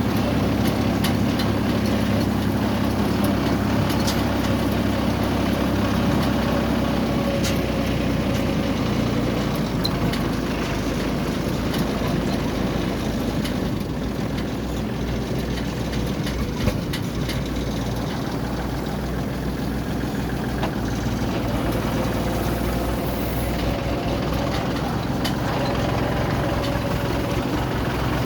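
Yanmar combine harvester running steadily, the engine keeping an even note with scattered light clicks and rattles over it.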